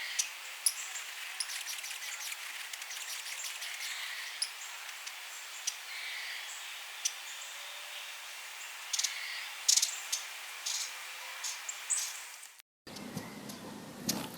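Broad-billed hummingbird giving scattered short, high, dry chip calls at irregular intervals over a steady background hiss. Near the end the sound cuts out briefly and resumes with a deeper background.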